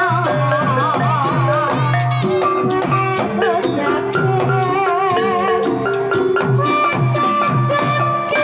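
Live Banyumasan gamelan accompaniment for tayub: a sinden sings with a wavering vibrato over a hand-played kendang drum and small bossed gongs struck with a mallet, the drum giving a steady run of low thumps under ringing gong tones.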